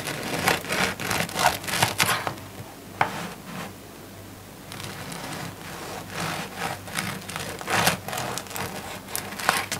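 Bread knife sawing back and forth through a crisp-crusted loaf of bread on a wooden cutting board: rasping strokes in two runs, with a quieter stretch between them.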